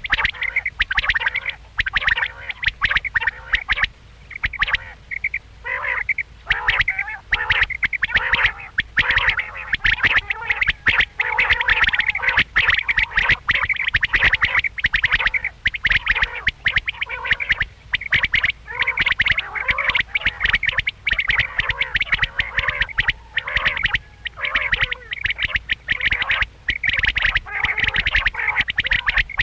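Quail calling: a steady, dense stream of short, rapid calls, one after another without a break.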